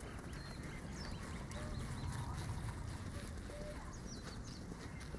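Birds chirping, with short high calls scattered throughout, over a steady low rumble.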